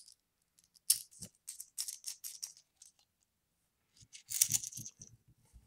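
Small metal clicks and rattles of screwdriver bits being handled and tried on a lock's screw: a few scattered clicks, then a denser burst of rattling near the end.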